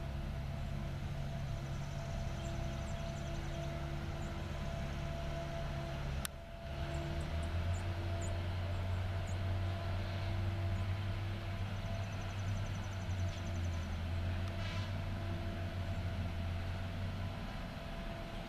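Caterpillar 573C feller buncher running steadily, a diesel drone with a steady hum over it. About six seconds in the sound briefly drops, then comes back heavier and lower as the machine works among the trees.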